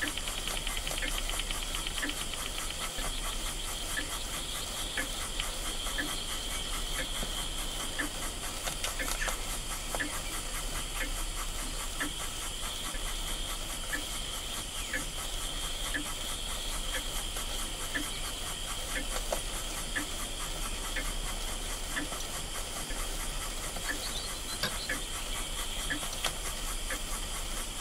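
Retrol model steam beam engine running steadily. Its boiler hisses continuously, with a regular light ticking beat from the engine.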